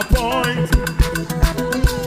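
Upbeat gyration praise music with a fast, steady drum beat and a wavering melody line over it.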